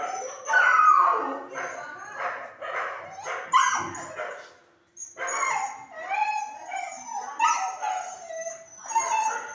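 Dogs in hospital kennels barking and whining, short pitched calls following one another closely, with a brief silence about five seconds in.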